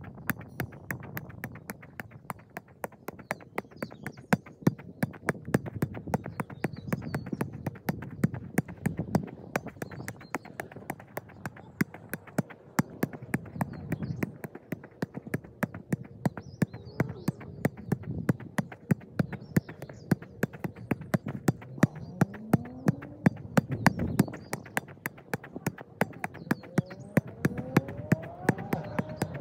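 Football being juggled in keepy-uppies: a long, even run of sharp thuds as the ball is struck off the foot again and again.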